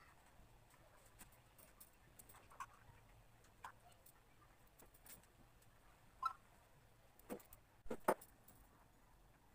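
Quiet room with scattered light clicks and taps from handling painting things on a sketchbook, with a few sharper knocks in the second half.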